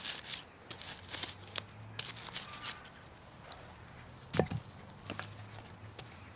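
Scattered clicks and rustling as split firewood is handled around a campfire, with one louder knock a little past four seconds in.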